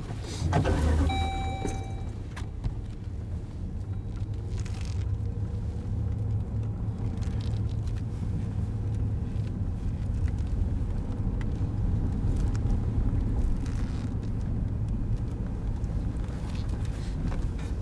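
Steady low road and engine rumble of a moving car, heard inside the cabin, with a brief clatter and a short high tone about a second in.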